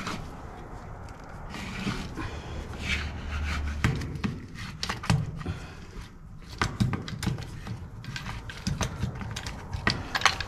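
Rubbing and scraping on a plastic drain pipe. From about four seconds in, irregular sharp clicks and knocks come in, the sound of hand work on the pipe.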